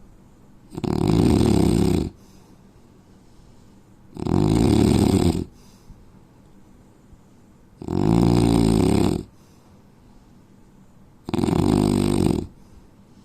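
A man snoring: four loud, rasping snores, each about a second and a half long, coming about every three and a half seconds with quiet pauses between.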